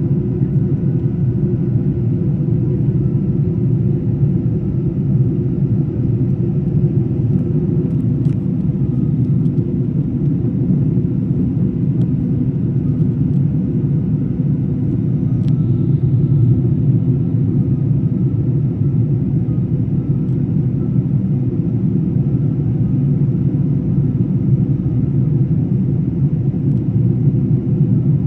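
Steady low rumble of a Singapore Airlines Airbus A380 airliner in flight, with faint steady tones above it.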